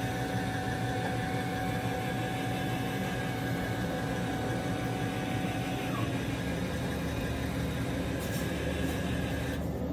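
ILJIN boat loader running, with a steady machine hum and a motor whine held at one pitch. The whine stops about six seconds in, and a higher hiss cuts off near the end.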